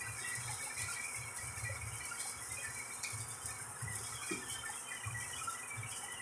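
Electric welding arc running steadily with a crackling hiss, scattered small crackles over an uneven low hum.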